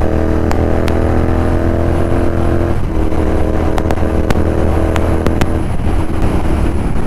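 Royal Enfield Continental GT 650's parallel-twin engine running through a Red Rooster aftermarket exhaust at a steady, gentle cruise, with a few sharp ticks scattered through.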